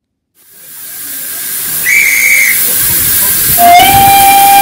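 Steam locomotive hissing as it fades in. About two seconds in, a short high-pitched whistle blast sounds, and a longer, lower whistle begins about a second and a half later.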